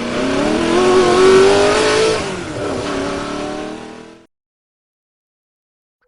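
Car engine revving: the pitch climbs for about two seconds, then falls back, and the sound cuts off abruptly about four seconds in.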